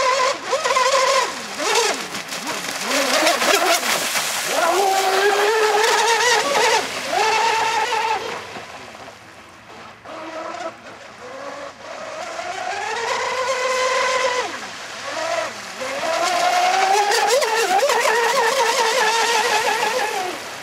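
Battery-electric RC speedboat at full speed on a 6S lipo setup: the motor and surface-running prop give a high whine that rises and falls in pitch with each pass and throttle change, over the hiss of the spray. There are several loud surges, with a quieter stretch in the middle.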